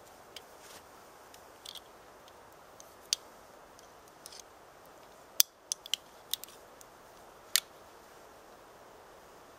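A scattering of short, sharp clicks and brief scrapes, about a dozen, irregularly spaced, as small fire-starting tools and tinder are handled and worked by hand; the sharpest click comes a little past halfway.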